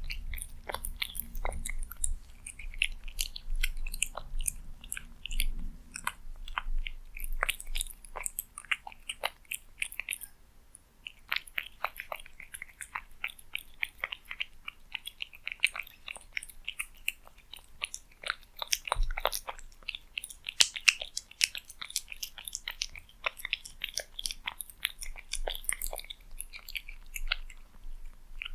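A cat eating, chewing food in a quick run of short, clicky bites, with a brief pause about ten seconds in.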